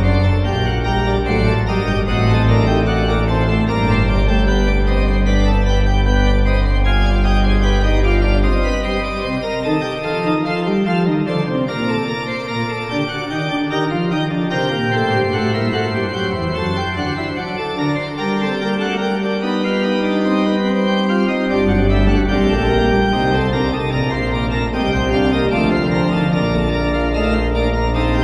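Organ music playing slow, sustained chords. The deep bass notes drop out about nine seconds in and come back around twenty-two seconds.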